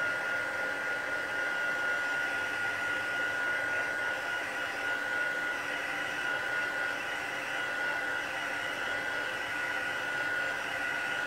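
Craft heat tool blowing hot air steadily to dry wet dye ink on paper: a steady rushing fan noise with a thin, high whine running through it.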